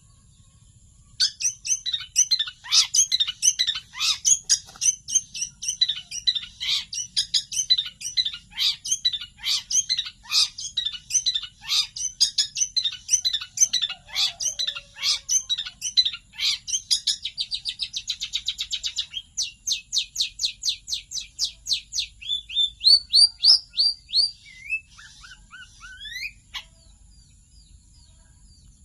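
A songbird singing a long, fast, varied song of rapid chirps and trills, with a very fast buzzy trill partway through followed by evenly repeated notes and a few rising and falling whistles, stopping about 26 seconds in. This is the rapid burst singing that songbird keepers call 'tembakan'.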